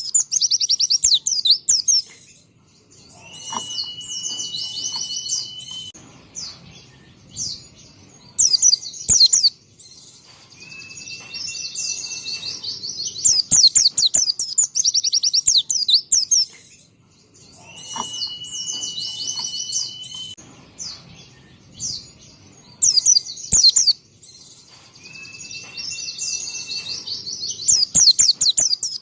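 White-eye (pleci) singing: fast, high twittering trills and chatter in loud phrases, broken now and then by a long steady whistled note held for a second or more.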